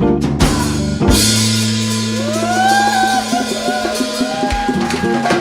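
Live band music: a rapid drum fill that lands on a crash about a second in, then a held chord with a gliding melody line over it.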